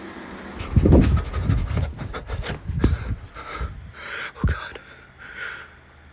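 Low thumps and rubbing of the phone being handled and lowered toward the floor, then soft breathy panting puffs about once a second.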